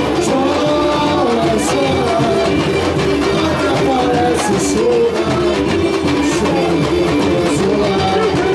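Carnival marchinha played live by a band through a sound truck's loudspeakers, with a melody line carried over a steady dense beat.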